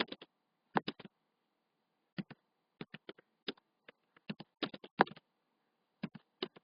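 Typing on a computer keyboard: irregular clusters of sharp key clicks, with short pauses between bursts.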